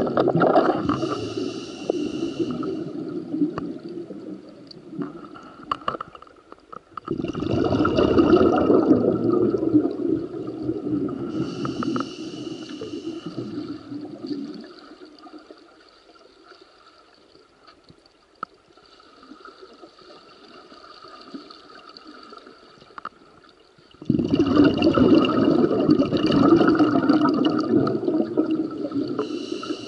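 Underwater water noise heard through a submerged camera: rushing, bubbling surges each lasting a few seconds, at the start, about seven seconds in and again from about twenty-four seconds on, with a much quieter stretch in between.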